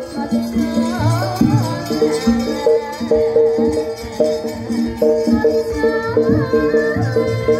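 East Javanese gamelan music accompanying a wayang kulit shadow-puppet play. Bronze keyed instruments play a steady rhythmic run of ringing notes under a wavering melody line.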